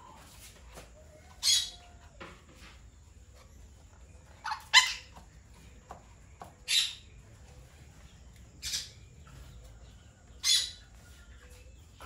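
Green parakeets giving short, scratchy screeching calls, about six single calls spaced a second or two apart.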